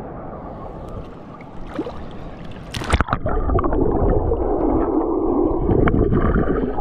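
Shallow seawater sloshing and gurgling close to the microphone, with a sharp splash nearly three seconds in, after which the water noise turns louder and bubbling.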